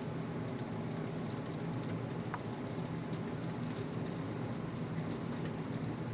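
Wet snow and rain falling steadily, a constant patter with many scattered small drop ticks on leaves, fence and ground, over a steady low rumble.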